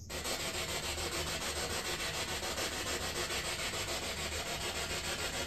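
Spirit box (P-SB7) sweeping through radio frequencies: steady hissing static, chopped into an even, rapid pulse several times a second.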